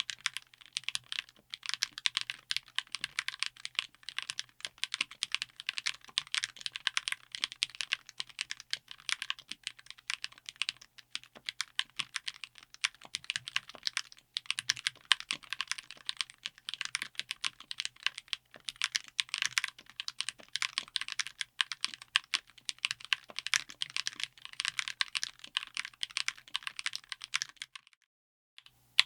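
Akko Flash magnetic linear switches in a mechanical keyboard, typed on rapidly in a dense, continuous run of keystrokes that stops about a second before the end.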